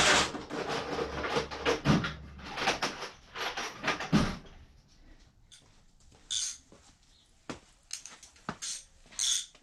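Half-inch ratchet clicking in quick strokes as it backs off the motorcycle's front axle nut, for about four seconds, then a few scattered metallic clicks and clinks.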